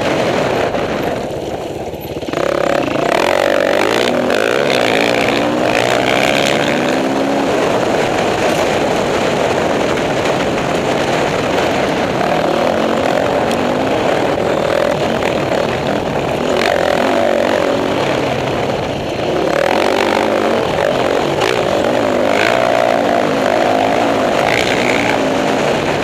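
Dirt bike engines running on a trail ride, the pitch rising and falling with the throttle and easing off briefly twice, with wind rushing past.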